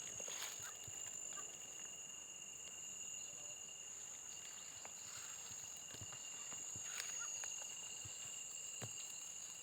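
A steady chorus of insects: two continuous high-pitched tones with no break, with a few faint clicks now and then.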